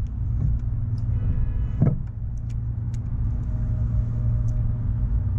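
Small metal clicks and a sharp knock just under two seconds in, as a 4mm Allen key works the ABS sensor bolt free on a motorcycle's front fork, over a steady low hum.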